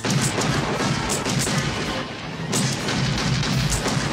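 A rapid, irregular string of handgun shots, some fired close together in pairs, with background music playing underneath.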